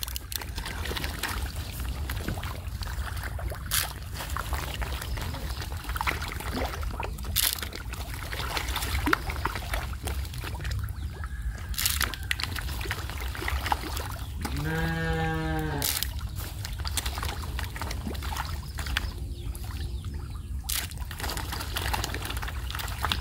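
Water trickling and splashing, with scattered sharp clicks and knocks over a low steady rumble. A brief pitched call sounds about fifteen seconds in.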